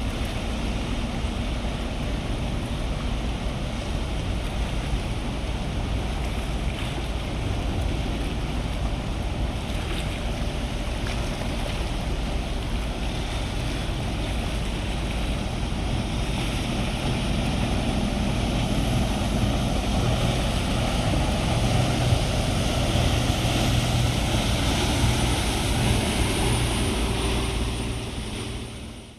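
A low ship's engine drone over a steady wash of wind and water noise. The drone grows stronger about two-thirds of the way through, then everything fades out at the end.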